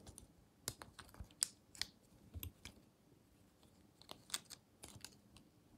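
Faint plastic clicks and clacks of a Transformers Airazor action figure being handled, its parts and joints moved and repositioned by hand: scattered sharp ticks, bunched around a second in and again around four to five seconds in.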